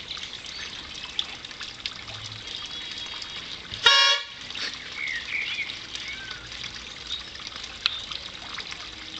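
Orange plastic mouth-blown football supporters' horn (toeter) giving one short, loud blast about four seconds in. Birds chirp faintly in the background.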